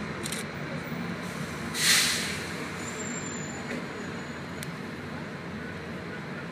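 Bus engine running at low speed amid street traffic, with a short, loud hiss of air brakes about two seconds in.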